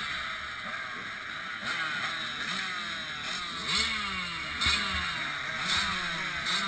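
Several dirt bike engines idling and revving in short throttle blips, their pitches rising and falling and overlapping one another.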